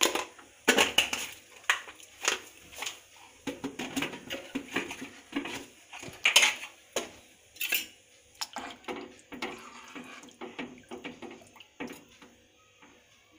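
Steel ladle stirring the watery rice and moong in an aluminium pressure cooker, clinking and scraping against the pot's sides while the liquid sloshes. The clinks come irregularly throughout, the loudest just past six seconds in.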